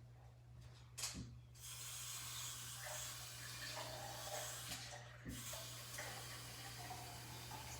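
Water pouring into a single-serve coffee maker's water reservoir: a knock about a second in, then a steady rush of water.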